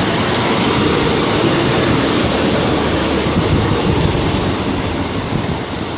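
Class 156 diesel multiple unit arriving alongside the platform: a loud, steady rumble of wheels and engine that eases a little near the end.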